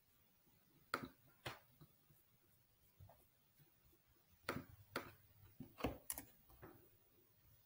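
Scattered sharp clicks of a computer mouse and keyboard: a few single clicks in the first half, then a quicker run of about half a dozen clicks while code is scrolled and highlighted.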